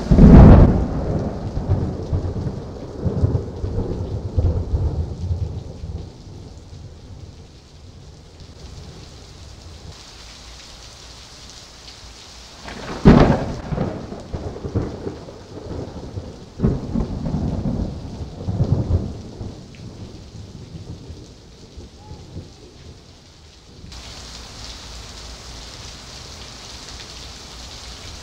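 Thunderstorm: a loud crash of thunder right at the start rumbles away over several seconds, and a second sharp crack about 13 seconds in is followed by more rolling rumbles. Steady heavy rain falls throughout, and its hiss grows louder and brighter about 24 seconds in.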